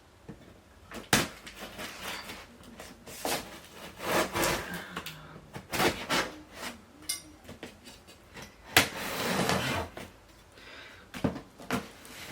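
A large cardboard box being handled and opened by hand: scattered knocks, bumps and scrapes, with a longer rasping noise about nine seconds in.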